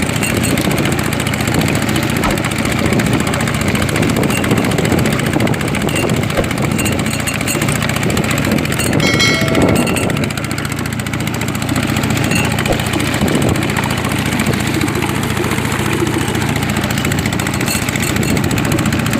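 Small boat's engine running steadily, with a brief high-pitched tone about nine seconds in.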